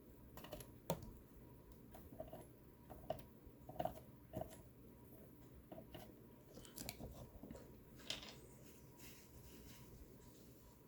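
Faint, scattered light clicks and taps of hand tools during fine soldering work on a laptop circuit-board connector, a few slightly sharper ticks in the first four seconds.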